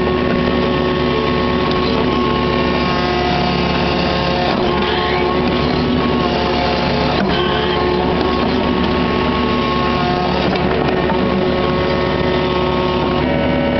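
Kubota KX61-3 mini excavator's diesel engine running steadily under load, with whining hydraulics whose pitch shifts now and then as the bucket is worked, heard from the operator's seat.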